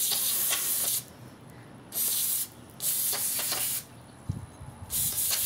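Aerosol can of gun scrubber degreaser sprayed hard through its thin extension straw onto a pistol slide, a loud hiss in four bursts of about half a second to a second each, with short quiet gaps between.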